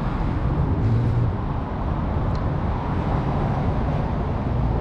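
City street traffic: a steady low rumble of passing and idling vehicles, with a faint engine hum that swells and fades.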